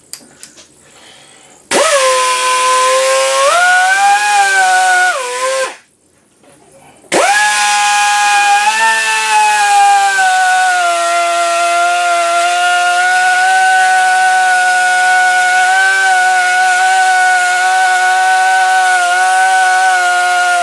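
Pneumatic die grinder whining as it grinds away a steel worm screw: a short run of a few seconds, a pause of about a second and a half, then a long steady run, its pitch shifting slightly as the wheel bites.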